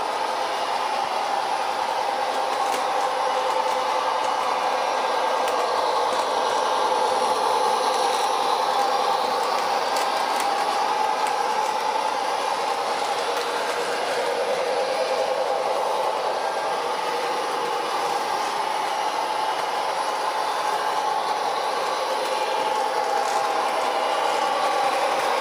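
Model train running along its track: a steady whirring of the locomotive's motor and the wheels rolling on the rails, with a few faint clicks.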